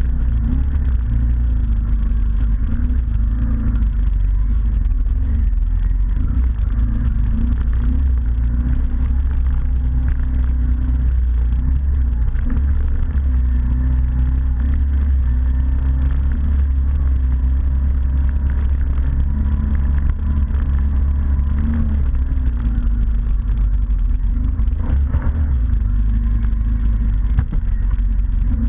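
ATV engine running steadily under way, its note wavering only a little, with a heavy low rumble.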